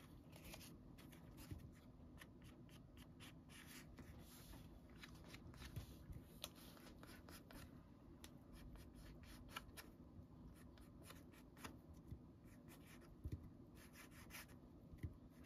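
Faint, scratchy rubbing and rustling of fingertips on paper as a piece is pressed and smoothed onto a journal page, with a few small ticks scattered through.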